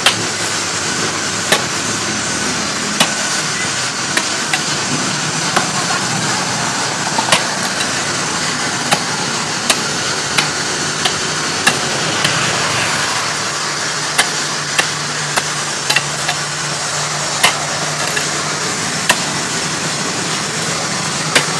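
A steel pick head on a wooden handle striking dry, hard, stony ground, a short sharp chunk every second or so, over a steady motor hum.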